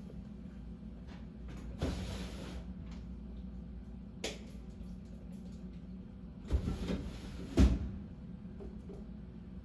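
Chips being cleared from a Tormach CNC mill with the machine in feed hold: four brief scraping, knocking bursts, the loudest a sharp knock near the end, over a steady low hum.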